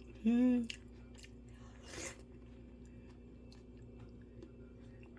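A person eating dried persimmon and jujube: a short hummed "mm" of enjoyment near the start, then faint chewing and mouth clicks with a soft breathy noise about two seconds in.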